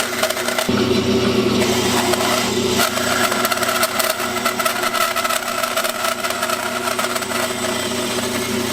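Bandsaw running and cutting a part out of wood, a steady motor hum with the rasp of the blade through the stock.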